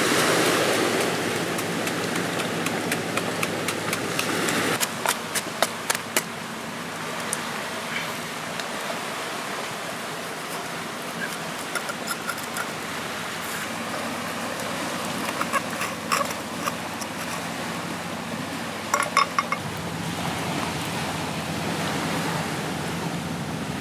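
Steady wash of sea surf on a rocky shore, broken by scattered clusters of sharp knocks and taps of a cleaver used for pounding chilies in a coconut-shell bowl and cutting a lime on the rock.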